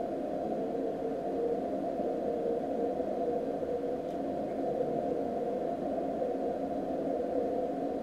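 OK1KIR's 6 cm moonbounce (EME) signal played back from a receiver recording: a wide, rough, wavering band of tone rather than a pure tone, smeared by the moon's libration, here quite mild libration spreading.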